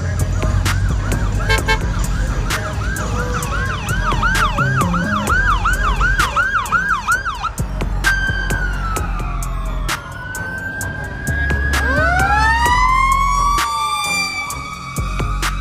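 Emergency vehicle sirens going by, a fire engine among them. First a fast yelp at about two and a half whoops a second, then about halfway through it switches to long wails that fall and rise, with two sirens overlapping near the end over a low rumble.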